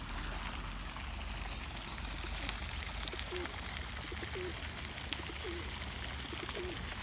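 Steady splashing of a pond fountain, with a run of short, low bird calls repeating from about three seconds in.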